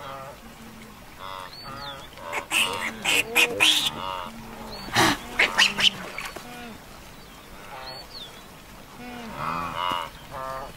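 A herd of blue wildebeest calling with repeated nasal, honking grunts, several overlapping. A few loud, sharp noises come between about two and six seconds in.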